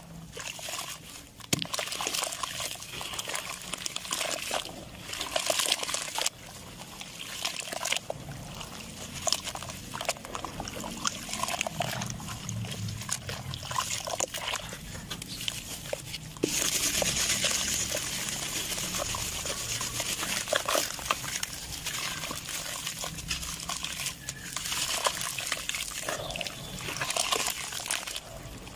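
Clumps of sand-cement or mud crumbling, gritty crackling with a wet, trickling quality at times, in a string of short clips that cut abruptly from one to the next, the longest change about 16 s in.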